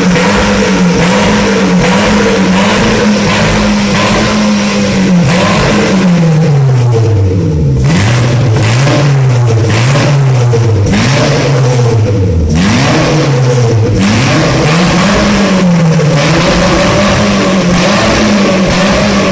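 Seat León engine through a sports exhaust, revved: the note wavers gently for a few seconds, then falls and climbs again several times in the middle, with short drops in loudness as the throttle is lifted around a third and two thirds of the way in, before settling back to a steady high note.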